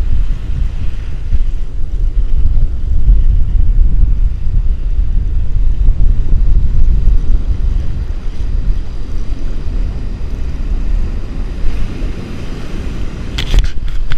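Wind buffeting the microphone as a loud, steady low rumble, over small surf waves breaking and washing up a sandy beach.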